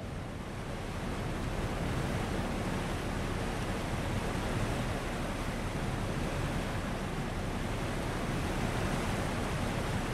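Steady rush of wind and sea, an even noise heaviest in the low end, swelling in over the first second or two.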